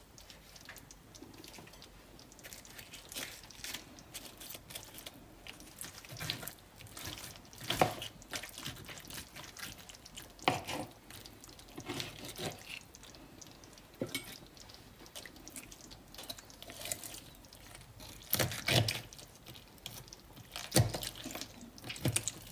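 Knife and fork carving a roast chicken on a plastic cutting board: meat and skin pulled and torn from the carcass, with irregular sharp clicks and scrapes of the utensils, the loudest about 8, 10, 19 and 21 seconds in.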